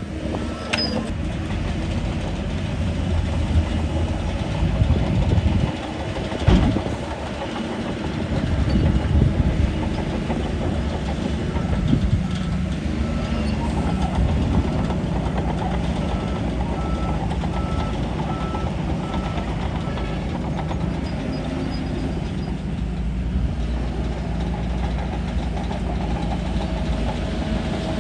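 Shantui DH17 bulldozer's diesel engine running under working load, rising and falling through the first ten seconds and then holding steady. A sharp metallic knock sounds about six and a half seconds in.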